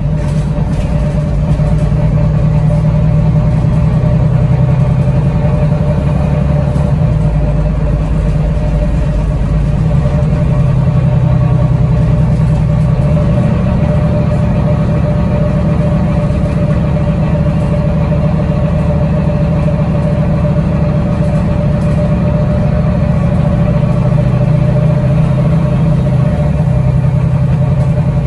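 Bus engine and drivetrain heard from inside the passenger saloon while the bus is under way: a steady low drone with a thin steady whine above it.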